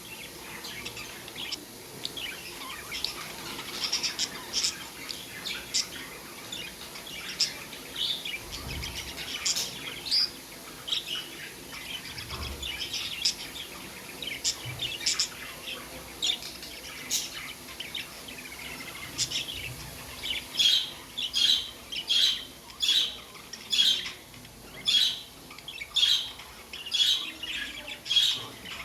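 Budgies chirping and chattering, many short high calls overlapping. In the last third the calls become a run of louder, evenly spaced chirps, about two a second.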